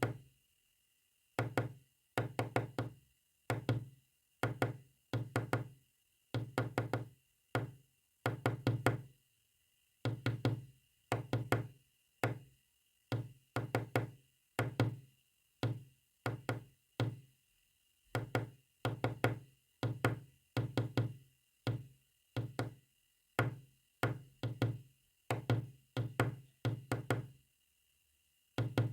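Rapid knocks tapped out in clusters of several quick strokes, with short pauses between clusters, in a rhythm like Morse code. A faint steady high-pitched tone sits underneath.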